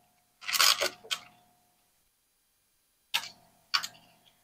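A spatula scraping cake batter out of a stainless steel mixing bowl, the metal ringing faintly, then two sharp knocks on the bowl about half a second apart near the end.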